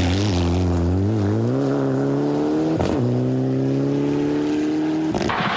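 Mitsubishi Lancer Evolution rally car accelerating hard on a gravel stage, engine pitch rising, with one upshift about three seconds in, after which it climbs again. The sound changes abruptly near the end.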